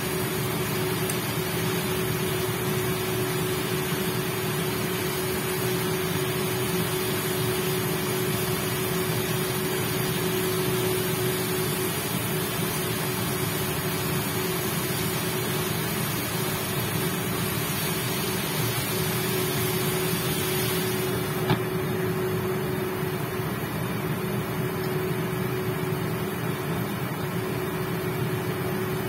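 Portable induction cooktop running with a steady hum under the sizzle of chicken pieces frying in a pan. About two-thirds of the way through there is a light clink, and the high sizzling hiss drops away as the pan's glass lid goes on.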